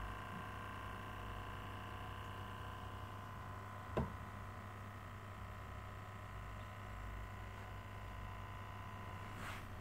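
Steady low hum of aquarium equipment, with one sharp click about four seconds in.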